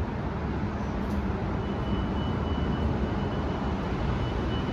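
Transit bus driving past at close range: a steady low engine rumble, with a thin high whine joining about a second and a half in.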